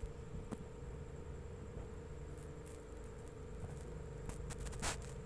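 Faint rustling and handling noise with a few soft clicks, the most distinct one near the end, over a steady low hum.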